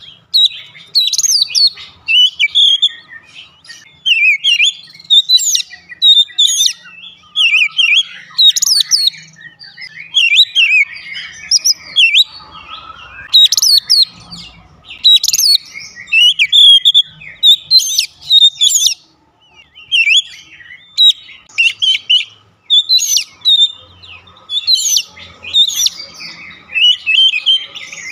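Male Oriental magpie-robin singing a continuous, varied song of loud whistled phrases with only brief pauses between them.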